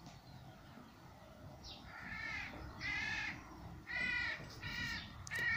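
A crow cawing, about five harsh caws in a quick series.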